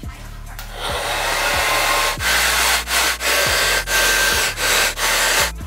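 Handheld hair dryer blowing steadily, starting about half a second in, with several brief dips as it is moved about.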